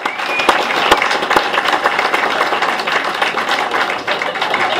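Crowd applauding: many hands clapping at once, dense and steady.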